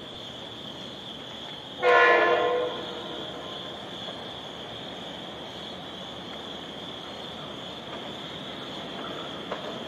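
Bombardier M7A electric multiple-unit train sounding its horn once about two seconds in, a short blast of under a second, then a quieter steady noise as it approaches.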